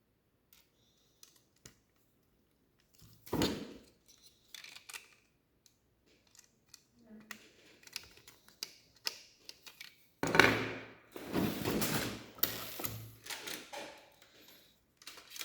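Lego Technic plastic pieces being handled and fitted together: scattered small clicks, a louder rattle about three seconds in, then a longer stretch of dense plastic clicking and rattling from about ten seconds in.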